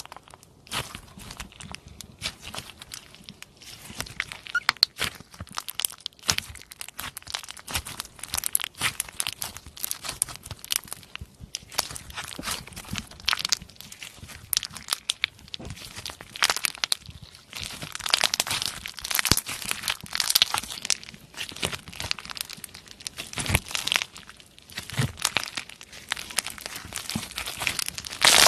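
Slime being squeezed and stretched by hand, giving a dense, irregular run of crackling, popping clicks that grows busier and louder past the middle.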